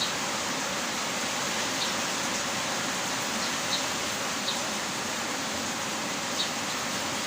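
Heavy rain falling in a steady hiss, with a few faint sharper drip ticks now and then.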